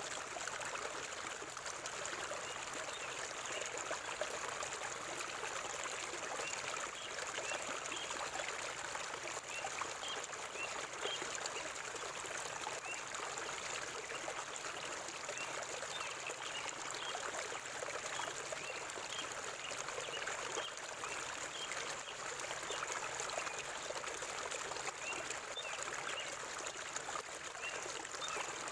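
Stream water flowing and trickling steadily over rocks, an even rushing sound that does not change.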